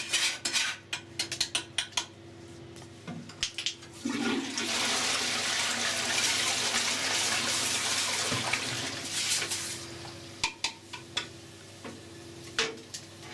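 Toilet flushing, a loud rushing of water into the bowl lasting about six seconds, with a toilet brush scrubbing in the swirling water. Before the flush come quick scraping and knocking strokes of scrubbing against the porcelain, and a few knocks follow near the end.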